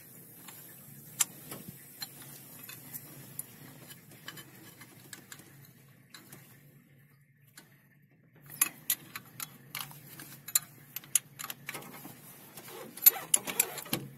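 Metallic clicks and taps of a spanner working on the open rocker gear and tappet adjusters of a Tata 1613 truck's diesel engine while it is being tightened. The clicks are sparse at first and pause briefly about six seconds in, then come quickly, about three a second, from about eight and a half seconds.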